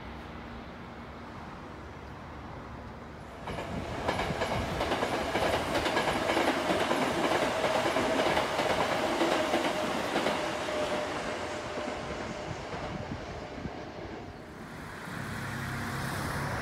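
A Sanyo Electric Railway electric train passing close by: wheels clattering over the rail joints with a steady whine, starting suddenly about three and a half seconds in and fading away over several seconds. Near the end, a lower steady hum with wind.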